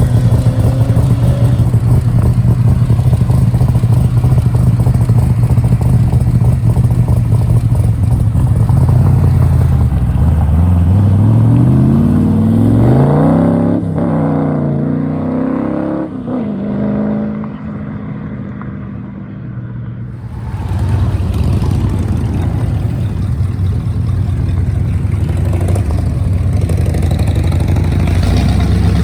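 A loud car engine rumbling at a steady low note. About ten seconds in it revs up and accelerates away, its pitch climbing and dropping several times. The sound dips, and another engine rumble builds up about twenty seconds in.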